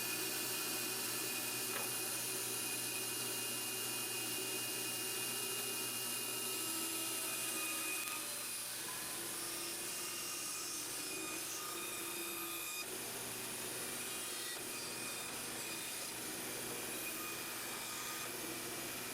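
Belt grinder running steadily with a whine, its abrasive belt grinding a resin micarta knife handle; the sound drops a little about eight seconds in.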